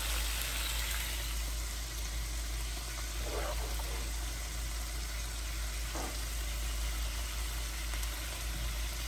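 Creamy Alfredo sauce with chicken bubbling and sizzling steadily in a pan at a slight boil.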